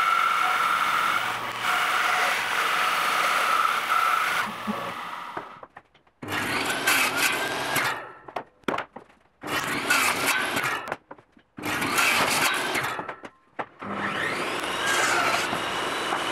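Band saw running and cutting a board for the first four seconds or so. After a short break come several separate table saw cuts, each a few seconds long with brief gaps between them.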